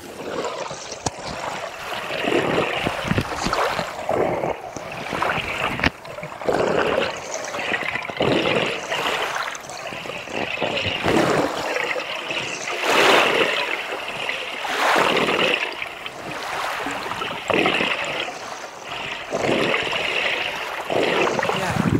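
Scuba divers breathing through their regulators, heard underwater: rushes of exhaled bubbles every second or two, with gurgling water between them.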